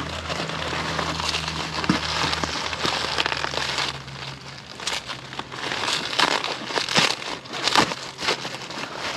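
Crinkling and rustling of packing material and cardboard as a shipping box is pulled open and dug into, with scattered small clicks and knocks. A low steady hum runs underneath.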